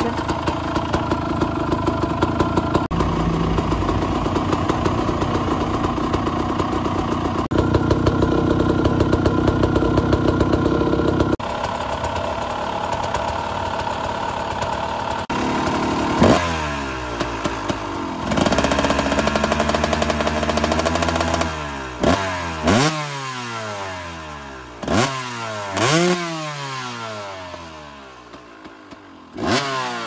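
KTM EXC 200 enduro's 200 cc two-stroke engine idling steadily through its long silencer. From about halfway in it is blipped about six times, each rev rising sharply in pitch and falling back toward idle.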